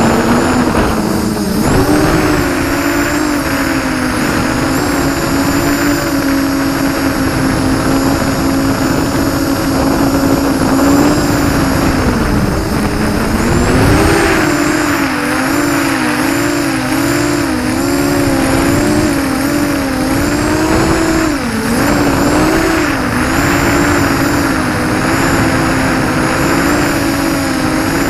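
ZMR-250 FPV quadcopter's brushless motors and propellers whining, heard up close through its onboard camera. The pitch wavers up and down constantly with throttle changes, with deeper swoops down and back up about 12 to 14 seconds in and again about 21 seconds in.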